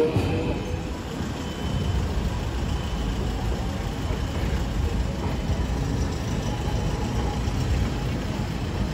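Steady low rumble of road traffic and idling vehicles. A departing tram's rear car passes close by at the very start, and its motor hum breaks off.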